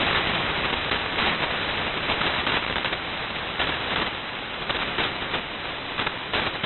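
Shortwave digital data signal heard through a receiver in upper sideband: a loud, even rush like hiss, with a fine rapid flutter running through it.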